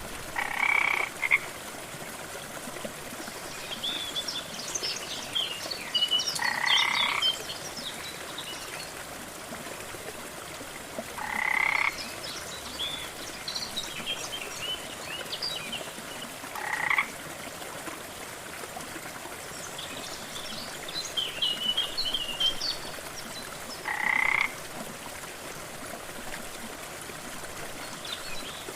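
Frogs croaking: a loud, short croak repeats five times, about every five seconds, with clusters of higher, quicker chirping calls in between. Underneath is the steady rush of a waterfall.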